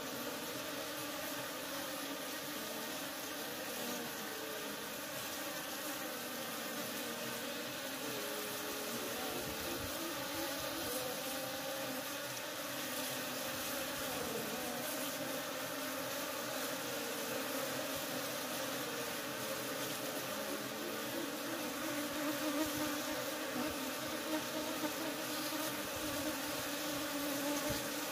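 Many honeybees buzzing in flight, a steady drone of wingbeats with several pitches wavering up and down, a little louder in the last few seconds.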